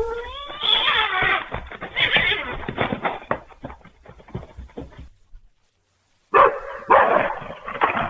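Dog barking in loud, repeated bursts, opening with a pitched, rising yelp. The sound drops out entirely for about a second midway, then the barking starts again loudly.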